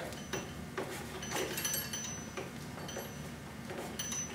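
Faint scattered clicks and rustles of a stitching needle and twine being worked through the stiff broom corn of a broom held in a press.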